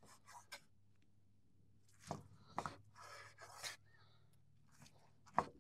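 Chef's knife slicing cooked tri-tip on a wooden cutting board: a few scraping cuts through the meat, with the blade knocking the board several times. The loudest knock comes near the end.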